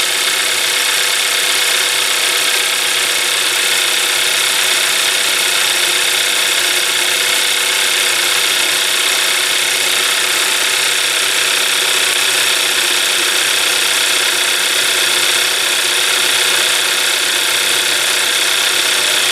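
Hyundai Elantra GT engine idling steadily and loudly, heard up close in the engine bay. It keeps running evenly without stumbling or stalling while the crankshaft position sensor harness is wiggled, so the wiggle test turns up no wiring fault.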